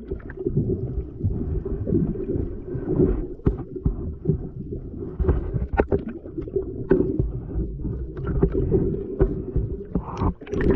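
Small speedboat on the sea: a low rumble with wind buffeting the microphone, uneven in level, with scattered short knocks on the hull.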